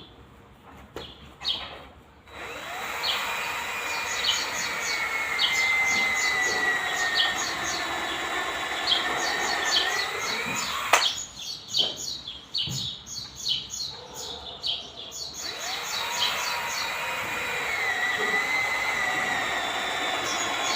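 An electric power tool spins up, runs with its pitch sagging and rising under load, cuts off about halfway, then spins up and runs again. A few knocks fall in the pause, and birds chirp throughout.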